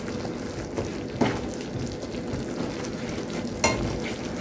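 Barbecue sauce sizzling and bubbling in a pan, a steady crackle, with two sharp knocks about a second in and again about three and a half seconds in.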